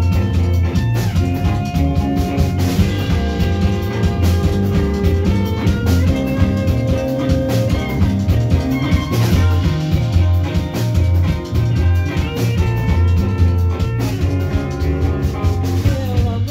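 A rock band playing live: electric guitar, bass guitar and drums, loud and steady with a strong, pulsing bass.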